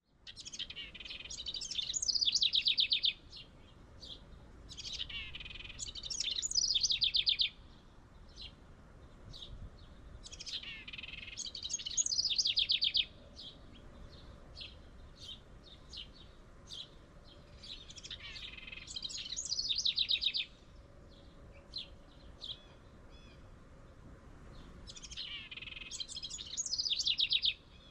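House wren singing: five bubbly song phrases a few seconds apart, each rising to a fast, even trill at the end, with short single high notes scattered between songs.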